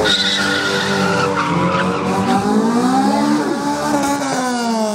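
Several vehicle engines revving, each rising and falling in pitch, overlapping one another.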